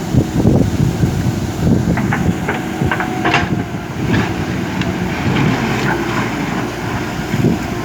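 JCB backhoe loader's diesel engine running steadily, with a run of short clanks and squeaks from the working gear in the middle.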